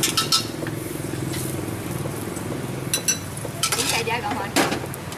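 Egg frying in a small metal pan on a street-cart burner, sizzling while a metal utensil stirs it and clinks and scrapes against the pan a few times, sharpest near the start and about four and a half seconds in. A steady low hum runs underneath.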